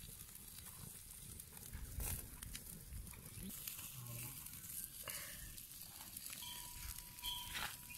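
Open wood fire crackling and hissing under fish and chicken grilling on a wire grate, with a couple of sharp pops.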